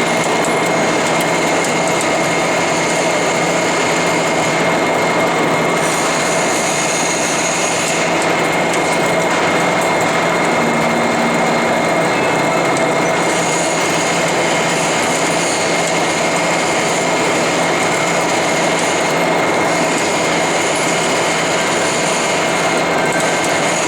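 Lathe running steadily, with a constant whine. A high hiss comes in and drops out several times.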